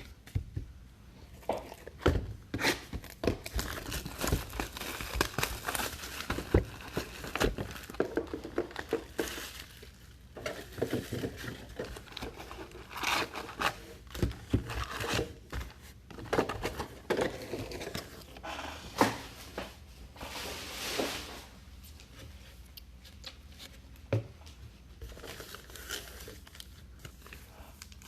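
Wrappers and packaging of baseball trading card packs being torn open and crumpled by hand, with irregular crinkling and scattered sharp crackles.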